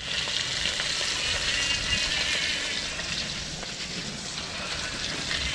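Whole fish frying in hot oil in a wok: a steady crackling sizzle, slightly louder in the first couple of seconds.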